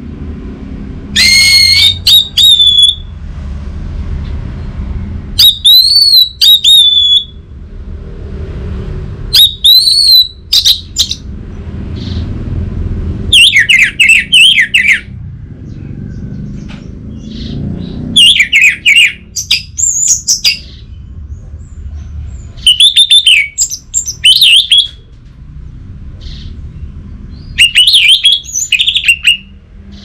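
Orange-headed thrush singing: about seven loud, varied whistled phrases of a couple of seconds each, one roughly every four seconds, over a steady low rumble.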